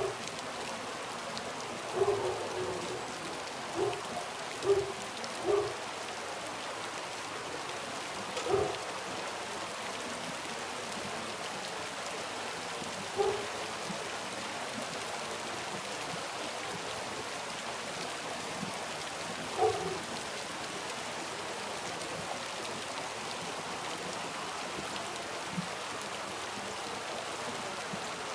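Soft, steady rain. A handful of short, louder knocks stand out from it: several in the first six seconds, then single ones about eight and a half, thirteen and twenty seconds in.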